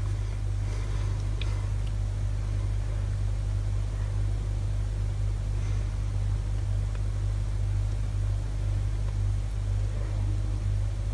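A steady low hum with a faint hiss over it.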